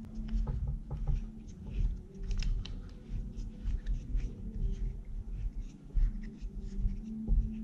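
Handling of a plastic binocular tripod adapter: faint scratching and small clicks as its thumb screw is turned by hand to tighten it into the binoculars' tripod socket. Low bumps from the handling sit over a steady low hum.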